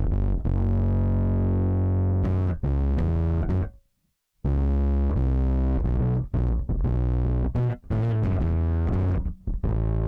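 Electric bass played through an overdrive effect on a Zoom B6 multi-effects processor: distorted sustained notes and riffs, cutting out completely for about half a second around four seconds in.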